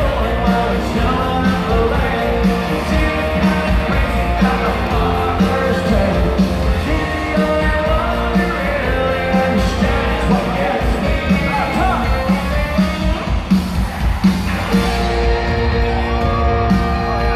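Live country band with singing over a steady beat, picked up from high in the stands of an arena, with crowd yells mixed in.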